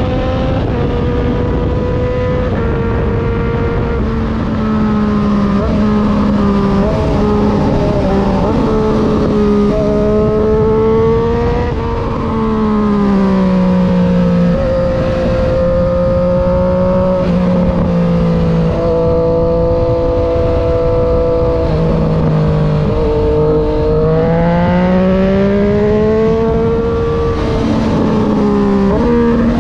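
Triumph Street Triple 765 RS inline three-cylinder engine running through an unbaffled SC Project full exhaust while being ridden, its pitch rising and falling with throttle and gear changes. The revs drop about twelve seconds in and climb again. They fall in steps between about nineteen and twenty-four seconds, then rise again.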